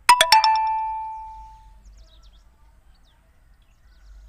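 Metal spatula striking the iron kadhai about four times in quick succession, leaving a metallic ring that fades over about a second and a half.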